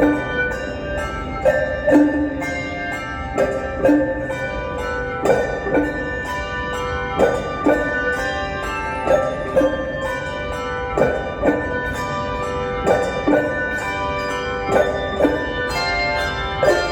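Handbell choir playing a lively rhythmic piece, the bells struck with mallets so they ring out like a large marimba. Quick struck notes ring on over one another, with strong accents about every two seconds.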